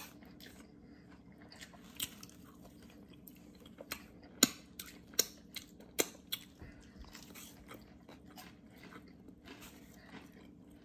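A person chewing food close to the microphone, with faint mouth sounds and a few sharp, crisp crunches or clicks about four to six seconds in, over a faint steady hum.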